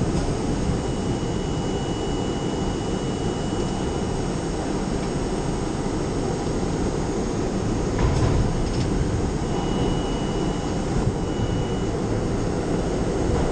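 R32 subway train running through the tunnel, heard from inside the front car: a steady low rumble of wheels on rail, with a faint thin high whine that comes and goes. About 8 seconds in there is a brief clatter.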